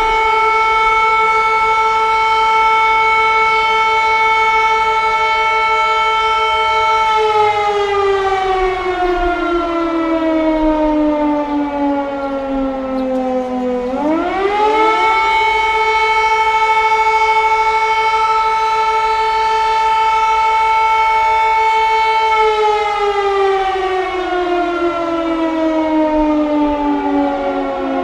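Air raid siren wailing: it holds a high tone for about seven seconds, slides slowly down over about seven seconds, then climbs quickly back up halfway through and holds again before starting a second slow fall near the end.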